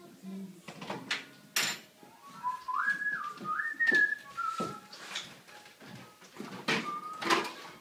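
A person whistling a few notes of a tune, the pitch stepping up and down between held notes, with a brief whistled note again near the end. Scattered knocks and clatter sound throughout.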